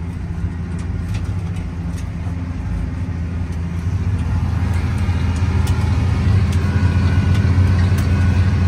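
Tractor engine running steadily under load while pulling a seed drill, heard from inside the cab as a low, even hum. It grows a little louder from about four seconds in.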